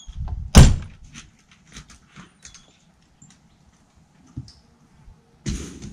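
A door slamming shut about half a second in, followed by a few small clicks and knocks, and a second, duller thump near the end.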